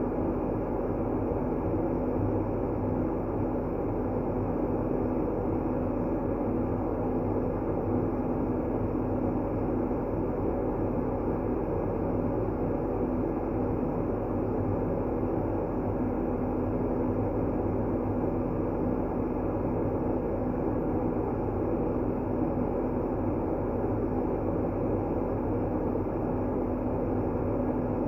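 Sleep-aid white noise: an unchanging rushing hiss, weighted toward the low end, with a faint steady hum underneath.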